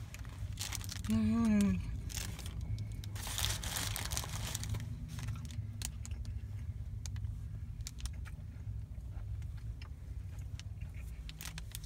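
A person chewing a bite of a double cheeseburger, with the paper wrapper crinkling and small mouth clicks, and a short hummed "mm" about a second in. A steady low rumble sits under it all.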